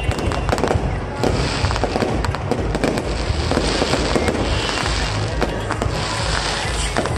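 Aerial fireworks bursting in quick succession: many sharp pops and bangs over a continuous crackle, with waves of higher hissing crackle from the glittering stars.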